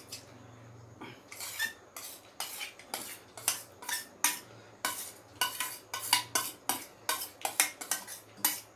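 A spoon clinking and scraping against a plate in quick, irregular knocks, starting about a second in.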